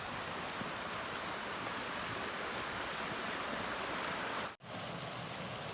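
Steady rushing of a stream with a small waterfall. The sound cuts out for an instant about four and a half seconds in.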